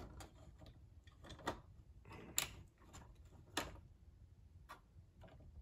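A die-cast toy car being set onto a shelf of a display case: a handful of separate sharp clicks and taps, the loudest about two and a half seconds in.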